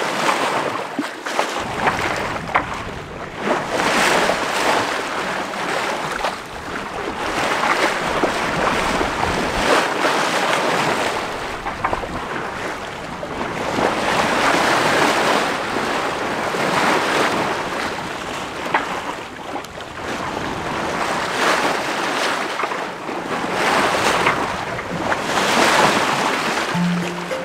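Sea water rushing and splashing along the hull of a sailboat under way, with wind noise on the microphone. The rush swells and eases every few seconds.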